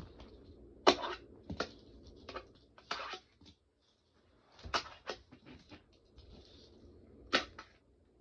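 Wooden (teak) fingerboard with pro trucks being popped, landed and rolled on small ramps: a string of sharp clacks, the loudest about a second in, near the middle and near the end, with softer scraping and rolling between them.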